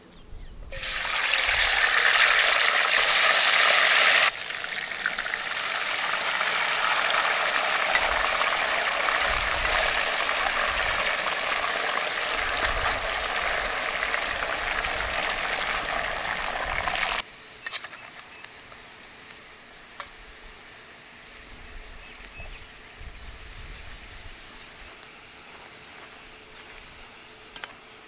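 Diced potatoes frying in hot oil in a cast iron Dutch oven. A loud sizzle starts about a second in, drops suddenly a few seconds later, and drops again about two-thirds of the way through to a faint sizzle.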